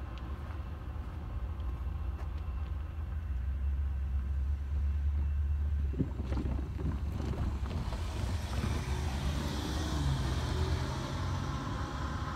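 Low rumble of a train pulling away from a grade crossing. About halfway through, road vehicles, a pickup truck and then a farm tractor, drive over the crossing: a few knocks as the tyres cross the rails, tyre and engine noise, and a steady engine hum near the end.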